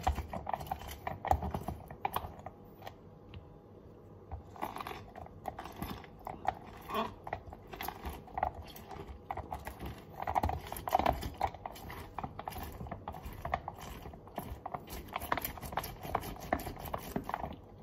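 Irregular light clicks and knocks of kitchen utensils and lemons being handled while lemon juice is prepared.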